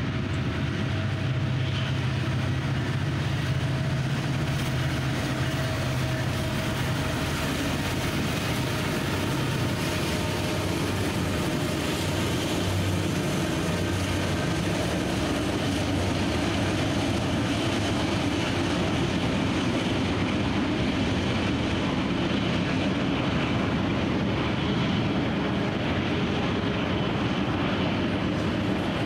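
Norfolk Southern freight train passing, led by several diesel-electric locomotives: a low engine rumble is strongest in the first ten seconds or so, then the steady rolling noise of the intermodal container cars carries on.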